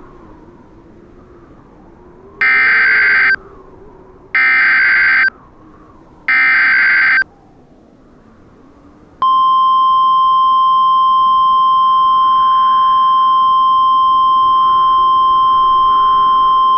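Emergency Alert System tones. First come three loud SAME header data bursts, each just under a second of harsh digital screech, about two seconds apart. Then, about nine seconds in, a steady single-pitch attention tone (the 1050 Hz NOAA Weather Radio style alert tone) begins and holds at one pitch, announcing an incoming alert.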